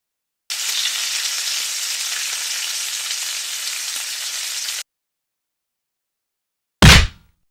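Added sound effects: a steady sizzling hiss that starts and cuts off abruptly after about four seconds, then, after a short silence, a single loud, deep thud near the end.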